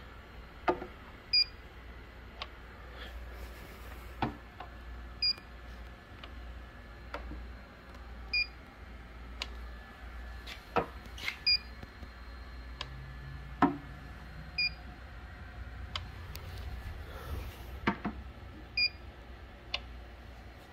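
Handheld coating thickness gauge giving a short high beep with each reading, six times a few seconds apart. Between the beeps come light clicks and taps as the probe is set against the painted body, a couple of them louder than the beeps.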